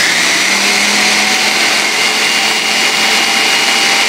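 Food processor running steadily, puréeing silken tofu into a smooth mix: an even whir with a thin, steady motor whine.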